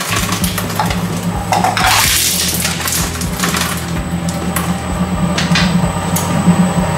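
Industrial twin-shaft shredder running with a steady low hum, its steel cutters clinking and rattling irregularly on small leftover metal and plastic pieces of shredded lighters.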